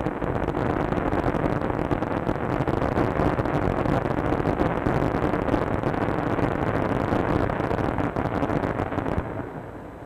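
Rough water and breaking surf: a steady, dense rush of noise on an old film soundtrack, easing off near the end.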